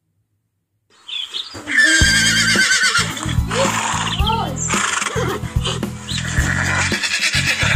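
An animal calling with a wavering, quavering cry starting about two seconds in, followed by shorter sliding calls, over background music with a steady beat.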